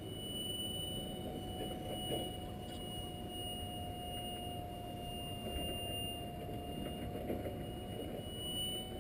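Airliner flying overhead at a distance: a steady engine rumble with a thin high whine that sags slightly in pitch in the middle and rises again near the end.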